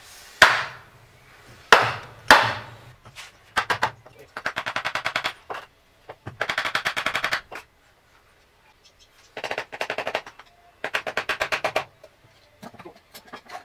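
Three sharp hammer blows struck through a piece of wood onto a differential housing, then four bursts of rapid rattling hammering, about a second each, typical of an impact wrench working the diff cover bolts.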